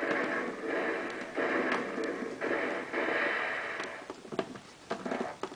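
Recorded arena crowd cheering played through the WWF SmackDown Real Sound Arena toy playset's small speaker, thin and tinny, rising in three surges. It dies away about four seconds in, leaving a few light plastic clicks and taps.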